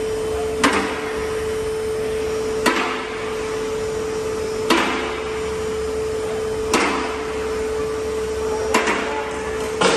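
Two-post car lift raising a car: its electric pump motor hums steadily while the safety latches clack about every two seconds as they pass each notch, six clacks in all, the last two close together.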